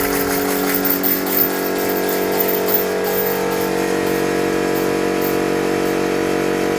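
Homemade steam engine running on compressed air at about 8 bar, spinning a bicycle-wheel flywheel at high speed: a steady, even hum that holds one pitch.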